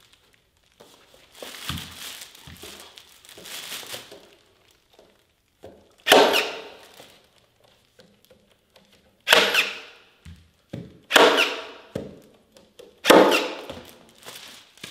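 Four heavy thunks, about two seconds apart, of a tool striking as a carpet tile is fastened down onto a wooden stair tread. Quieter rustling of carpet comes in the first few seconds.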